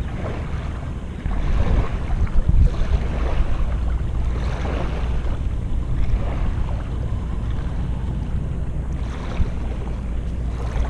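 Wind buffeting an action camera's microphone: a steady low rumble.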